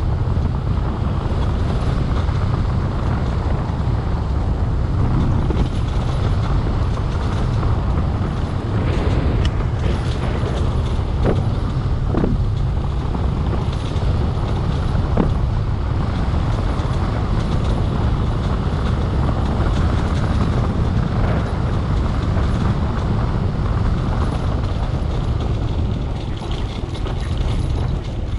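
Vehicle driving along a rough dirt road: a steady, loud rumble of engine and tyres on the track, with a few brief creaks or squeaks from the vehicle about ten to fifteen seconds in.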